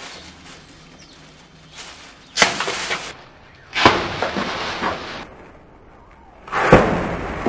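Capped plastic water bottle of vinegar and bicarbonate of soda bursting under gas pressure: three sudden pops, each followed by about a second of fizzing spray.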